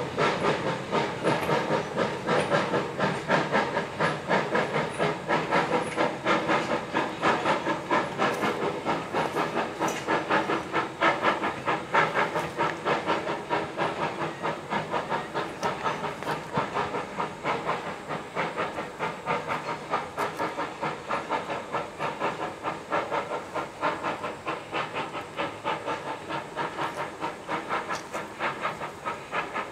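Steam exhaust of an 0-4-0T tank locomotive chuffing in quick, even beats as it pulls a train away. It fades steadily as the train moves off.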